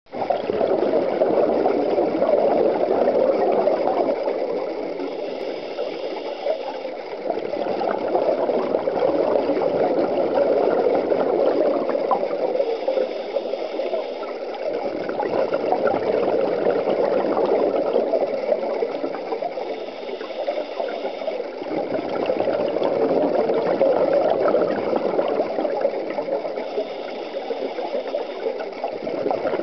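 A scuba diver breathing on a regulator: long, loud bubbling exhalations alternating with shorter, quieter hissing inhalations through the demand valve. There are about four breaths, one roughly every seven seconds.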